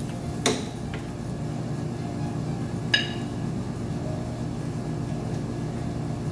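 A metal spoon knocks twice against a stainless steel sauté pan while serving pasta, the second clink ringing briefly. A steady low hum runs underneath.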